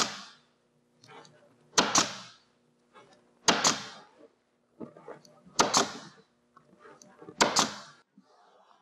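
Staple gun firing staples through a convertible top's fabric into the header bow: about five sharp, doubled clacks, roughly two seconds apart.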